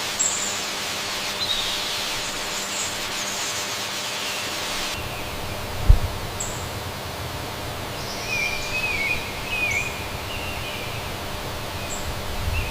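Birds chirping in short high calls, with a warbling call a little past the middle, over steady outdoor background noise. A single low thump about six seconds in.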